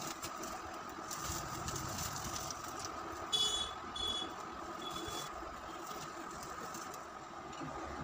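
Steady hiss, with three short, high beeps between about three and five seconds in.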